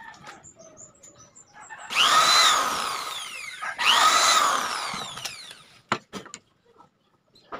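Corded electric drill run twice in short bursts, about a second and a half each, drilling into a wooden cabinet door at a concealed hinge. On each run the motor whine climbs fast and then falls away as it winds down.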